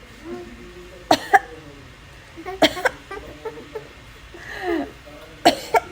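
A woman coughing in quick double coughs, three pairs in all, with short voice sounds between them.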